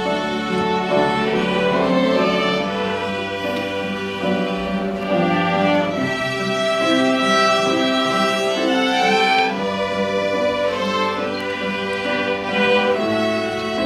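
Instrumental music: a melody of held notes over a sustained low bass line.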